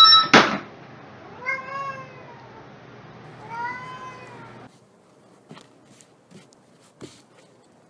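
Domestic cat meowing twice, about two seconds apart, each meow drawn out and rising then falling in pitch.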